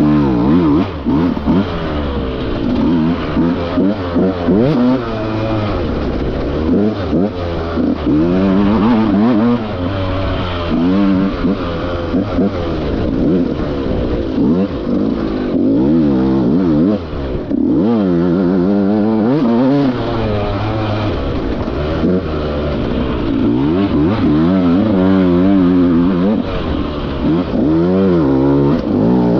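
Enduro dirt bike engine heard close up from on the bike, revving up and down over and over as the throttle is blipped and rolled on and off.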